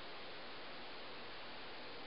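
Leslie Locke (Evergo) Scottsdale 48-inch ceiling fan running at speed: a steady, even hiss of moving air.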